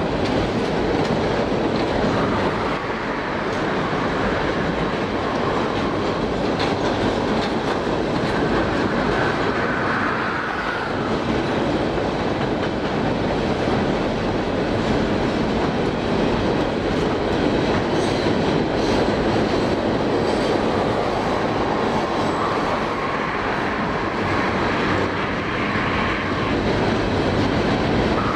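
Loaded freight cars rolling steadily across a steel deck trestle: continuous noise of wheels running on the rails, with a faint wheel squeal now and then.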